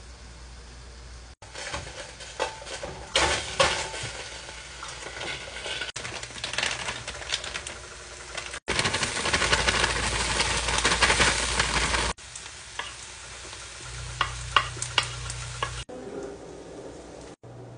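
Cubes of steak sizzling on a hot flat-top griddle, with metal tongs clicking and scraping as they are turned. The sizzle is loudest from about nine to twelve seconds in, and a few sharp tong clicks come near the end.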